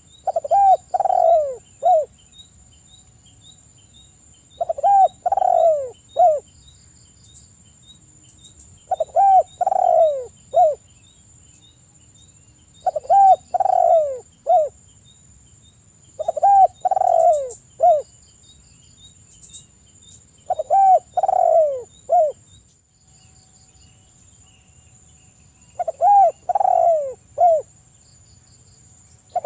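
Spotted dove cooing. It gives a phrase of several falling coos about seven times, roughly every four seconds.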